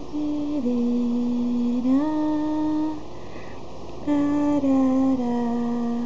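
Background music: a slow melody of long held notes that step mostly downward in pitch, with a pause about three seconds in.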